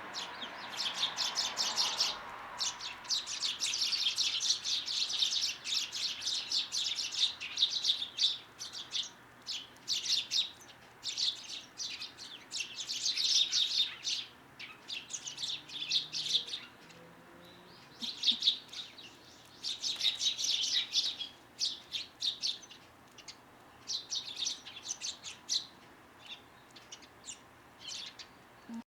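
Small songbirds chirping and twittering in quick runs of short high notes. The bouts come one after another with brief pauses between them.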